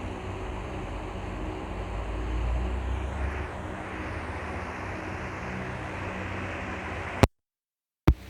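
Minibus engine running steadily with a low rumble that swells briefly about two to three seconds in. Near the end the sound cuts out completely for about a second, with a click at each edge of the gap.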